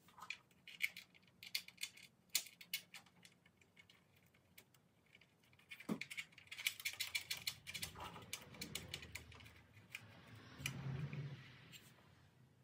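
Small metal hardware, nuts, washers and bolts, clicking and clinking as they are handled and fitted through a steel bracket on a Jeep frame. Scattered sharp clicks at first, a quick run of clicking about six seconds in, then softer scraping and rustling near the end.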